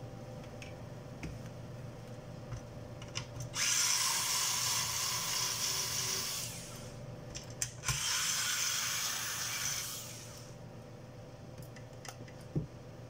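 Small electric screwdriver running in two spells of about three seconds each, starting about three and a half and eight seconds in, taking screws out of a pulse oximeter's switching power-supply board. A sharp click comes near the end.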